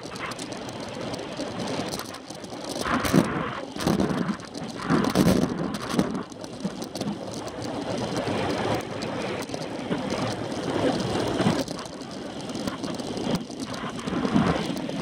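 Wind buffeting the microphone of a camera on a racing bike's handlebars, with tyre and road noise, rising and falling in gusts every second or two and a few sharp knocks from bumps in the road.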